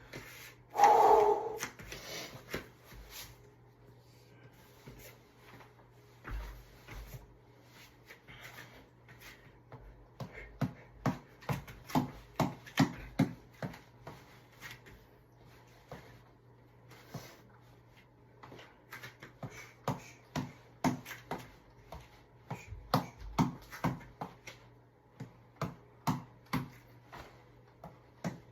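Short sharp taps in quick runs, two to four a second, with pauses between runs: a tap ball (boxing reflex ball) being punched. A brief louder sound comes about a second in.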